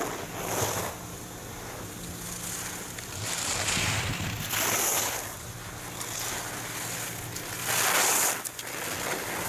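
Skis carving turns on hard-packed snow: the edges scrape with a hiss at each turn, several times, loudest near the end as the skier passes close.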